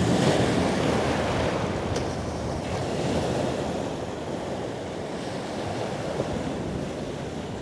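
Ocean surf washing onto a beach, a steady rushing noise that slowly eases, with some wind on the microphone.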